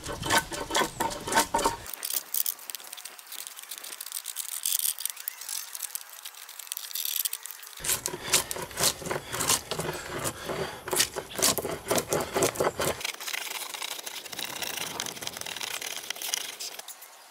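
Rapid, irregular clicks, knocks and scraping from handling and working wooden poles.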